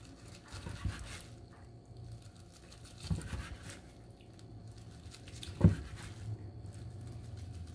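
A kitchen knife slicing through a rolled kimbap and knocking down onto a wooden cutting board: a few separate cuts a couple of seconds apart, the sharpest knock about three quarters of the way through.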